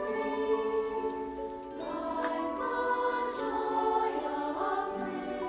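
Music with a choir singing slow, sustained chords that shift every second or so.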